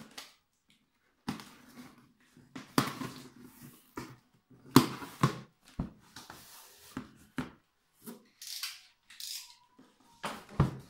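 Packing tape on a cardboard box being slit and torn open, then the cardboard lid and flaps pulled open: irregular scraping, ripping and cardboard knocks and rustles, the loudest about five seconds in.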